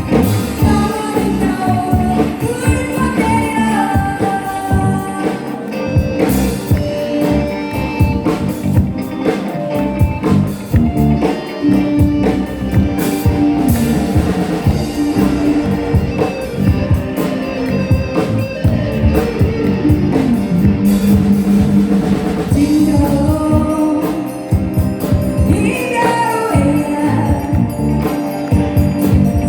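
A live band playing, with a lead voice singing over drums.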